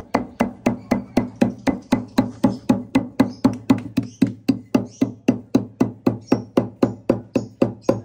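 Wooden pestle pounding dry corn and seed grain in a stone mortar: a rapid, even run of knocks, about four a second, crushing the grain into small pieces.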